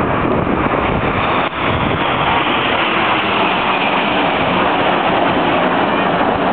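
Loud, steady jet noise from a formation of BAE Hawk T1 jets with Adour turbofan engines flying past, dipping briefly about a second and a half in.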